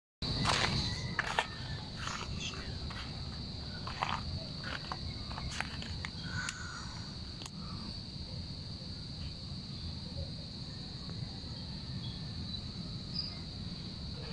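A steady high-pitched drone of insects (crickets or cicadas) over a low rumble, with scattered light clicks and rustles during the first half.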